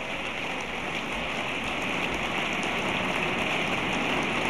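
Applause from a large audience of members of Congress: dense, even clapping that swells slightly louder.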